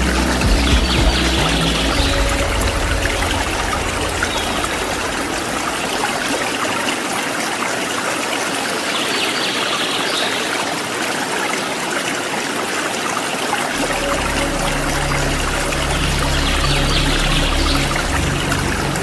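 Steady rush of falling and flowing water from a waterfall, an even hiss with no pauses. A low steady hum sits underneath at the start, fades out, and comes back about two-thirds of the way through.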